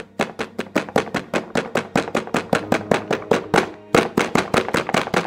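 A rapid, even run of sharp clicks or clacks, about seven a second, with a short break about four seconds in.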